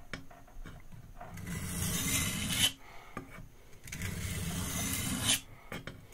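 Santoku knife blade scraped along a wet sharpening stone in two long strokes, each ending abruptly. The edge bevel is being reprofiled at a shallow angle.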